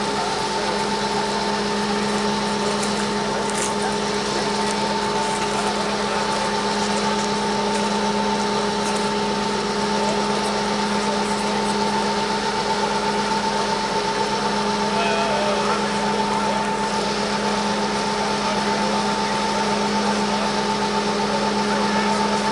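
DR class 120 (M62 'Taigatrommel') diesel locomotive's Kolomna V12 two-stroke diesel engine running at high power with the locomotive held on its brakes: a loud, steady, unsilenced drone with a constant hum, slowly getting a little louder.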